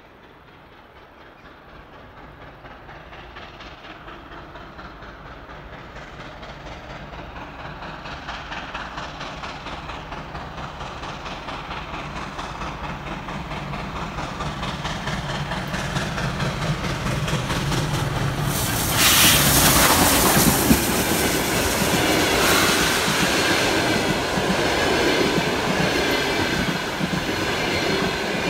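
Soviet L-class 2-10-0 steam locomotive approaching with its passenger train, its exhaust beats growing steadily louder. About two-thirds of the way in there is a sudden loud rush of noise as the engine passes, followed by the coaches' wheels clattering past.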